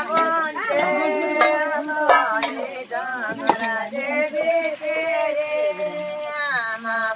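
A woman's voice singing a slow, melismatic song, holding long notes that waver and glide between pitches. There are a few short clicks.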